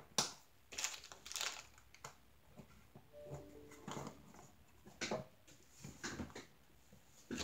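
Light scattered clicks and rustles of rubber bands being stretched and fitted onto a bamboo tray holder. About three seconds in, a faint short chime: an email notification on a phone.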